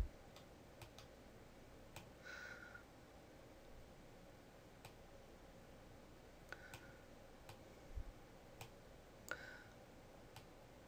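Faint, irregular computer mouse clicks, about a dozen scattered through, over near-silent room tone.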